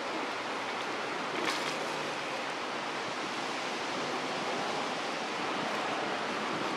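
Steady, even rushing outdoor noise, with one brief sharp rustle about one and a half seconds in.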